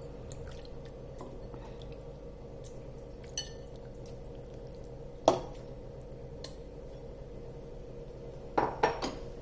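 Clinks and knocks of metal against a pressure cooker as raw chicken pieces are put into it: a ringing clink about three seconds in, a sharp knock about five seconds in, and a short cluster near the end, over a steady low hum.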